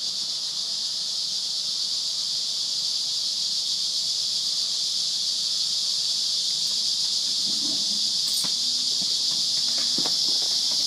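Cicadas droning in a steady chorus, a continuous high hiss that swells slightly louder, with a couple of faint knocks in the last few seconds.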